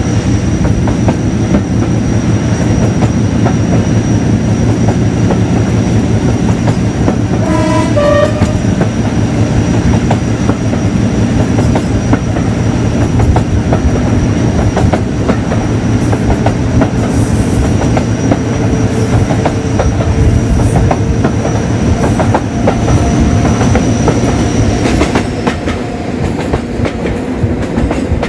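The 16-cylinder Ruston Paxman diesel engine of Class 56 locomotive 56006 runs under power with a deep throb and a steady high-pitched whine, heard from a carriage window behind the locomotive, with wheels clicking over rail joints. A two-tone horn sounds briefly about eight seconds in, and the whine fades near the end.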